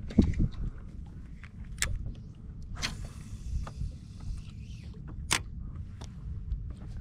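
Scattered sharp knocks and clicks on a fishing boat over a steady low rumble, with a brief hiss about three seconds in.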